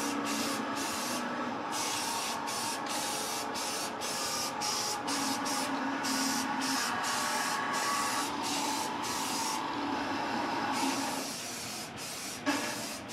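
Aerosol spray paint can (Rust-Oleum Professional gloss black) hissing in repeated bursts with brief breaks as it coats an axle, stopping about eleven seconds in.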